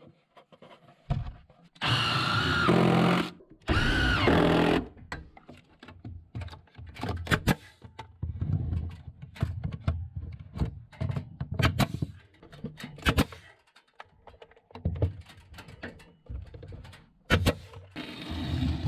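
A nail gun firing brads into pine boards, heard as a run of sharp separate shots from about seven seconds in, with knocks and thuds of boards being handled between them. It is preceded by two loud bursts of a power tool running about two and four seconds in.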